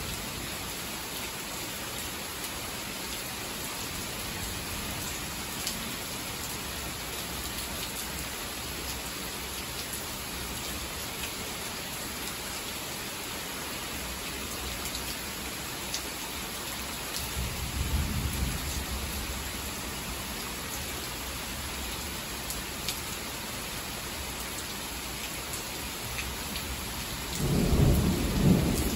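Heavy rain falling steadily, with a low rumble of thunder about two-thirds of the way in and a louder peal of thunder rising near the end.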